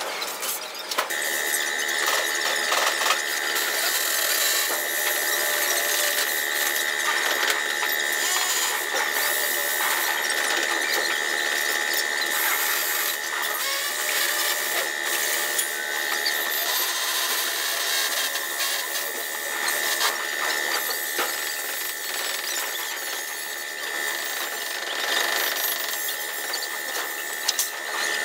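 Construction work noise: a steady high-pitched whine starts about a second in and carries on almost throughout, over a busy clatter of tool and metal knocks.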